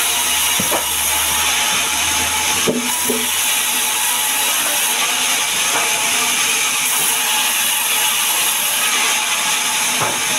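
Sawmill band saw running and cutting lengthwise through a sengon log, a steady loud hiss of the blade in the wood. There are a couple of sharp knocks, one shortly after the start and a louder one near three seconds in.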